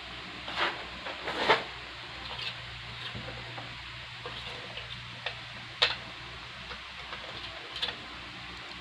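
Hands handling packaging and parts: scattered short clicks and rustles, the loudest about a second and a half in, over a steady background hiss.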